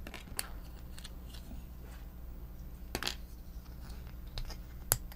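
Small hard-plastic parts of a TOMY FlipBot toy clicking as they are handled by hand: a few sharp clicks, the clearest about three seconds in, over a low steady hum.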